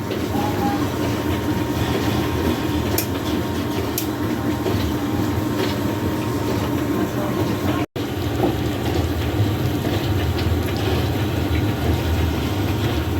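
Steady low mechanical rumble and hum, with a few faint clicks, that cuts out for an instant about eight seconds in.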